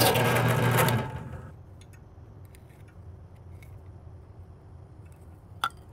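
Drill press running with a step bit cutting through a plastic enclosure lid, then switched off about a second in and spinning down. After that, only faint handling clicks and one sharp click near the end.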